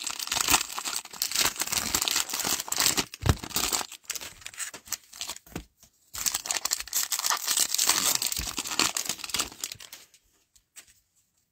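Foil wrapper of a Panini Prizm cello pack of trading cards crinkling and tearing as it is handled and torn open by hand, in two spells of rustling with a short pause between them.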